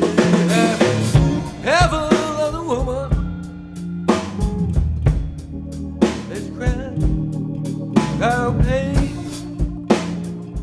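Live blues band playing an instrumental passage: electric guitar lines with bent notes over a steady drum kit beat. The bends come in two runs, about two seconds in and again about eight seconds in.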